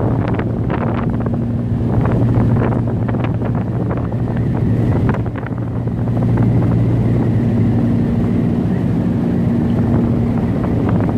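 Hurricane Harvey's wind gusting hard and buffeting the microphone in irregular blasts, over a steady low drone.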